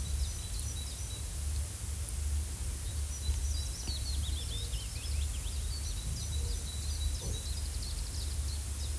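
Forest ambience: small birds chirping and twittering, most busily around the middle, over a steady low rumble and hiss.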